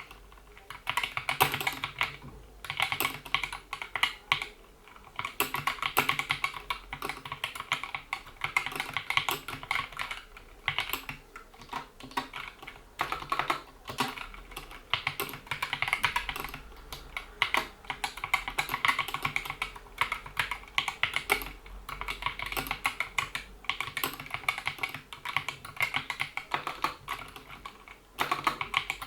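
Typing on a GK61 60% mechanical keyboard with Gateron Yellow optical switches, PBT keycaps and rubber dampener rings on the keys: fast runs of key clicks in bursts of a few seconds, with short pauses between them.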